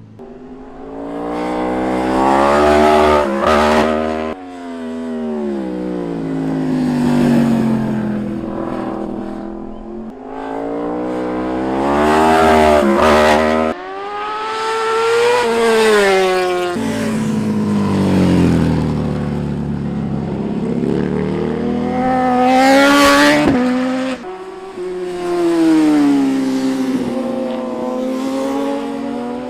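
Sport motorcycles passing one after another on a canyon road, each engine revving up as it approaches and dropping in pitch as it goes by, about six passes in all.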